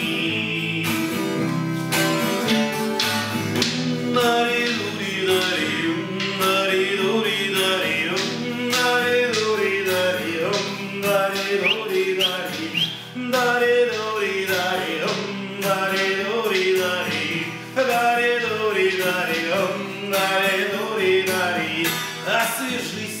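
Music: a song with strummed acoustic guitar under a melody line, and no sung words to be made out.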